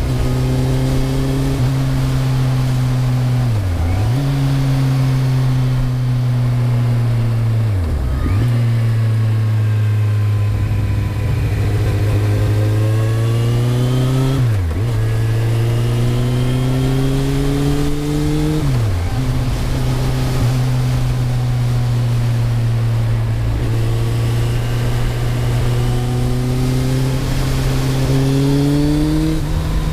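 2008 Kawasaki Z1000's inline-four engine running through a Mivv GP exhaust with the dB killer fitted, a steady drone that dips sharply in pitch for a moment four times and climbs near the end.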